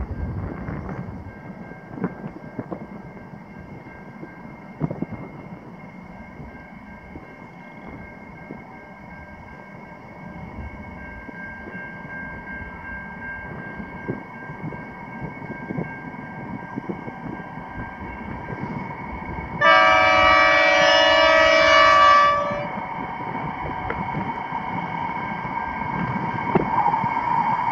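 Approaching diesel freight train headed by NR-class locomotives: a single long horn blast, a chord of several notes lasting about three seconds, comes about two-thirds of the way in. Under it, the sound of the locomotives grows louder as they draw near.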